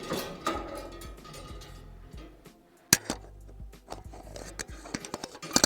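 Scattered clicks and knocks around a cast-iron wood stove, a sharp one about three seconds in and another near the end, over faint background music.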